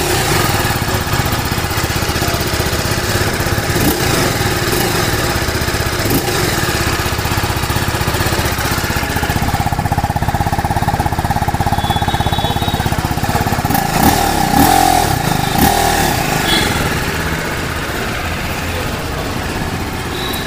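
TVS Apache RTR 310's single-cylinder engine idling steadily through its exhaust, with a slight rise in level about fourteen seconds in.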